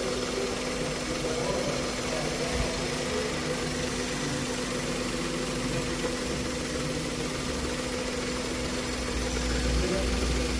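Three-cylinder car engine idling steadily, running on all three cylinders again after a faulty wire that had left one cylinder dead was replaced.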